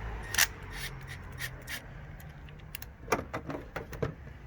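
Clicks, taps and rubbing of a plastic check valve and rubber vacuum hose being handled and test-fitted by hand: one sharp click about half a second in, a few lighter ones after it, and a quick cluster of taps near the end.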